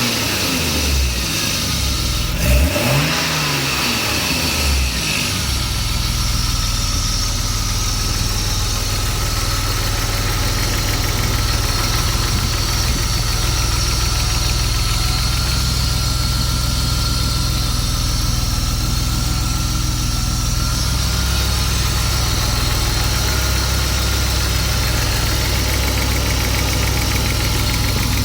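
M50 engine blipped twice near the start, rising and falling in pitch, then settling to a steady idle with a ticking sound running through it.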